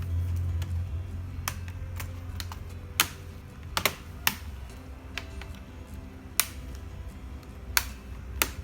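About eight sharp, irregular clicks and taps of small hard laptop parts being handled during a hard-disk swap, over quiet background music.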